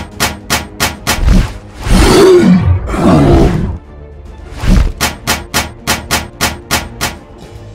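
Cartoon sound effects for a giant spider-legged monster: sharp clicking footsteps, about three a second, as it walks, broken in the middle by a loud creature growl of about two seconds that rises and falls in pitch, over quiet background music.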